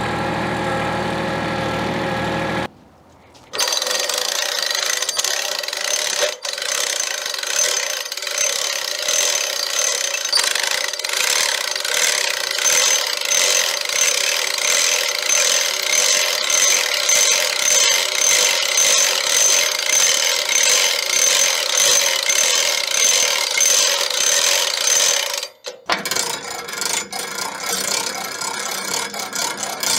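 Hand-cranked log winch ratcheting in steady strokes, roughly one a second, with a high metallic ring, as it draws a log up onto a sawmill bed. A compact tractor's engine runs for the first few seconds, and near the end a quieter mechanical sound with clicks takes over.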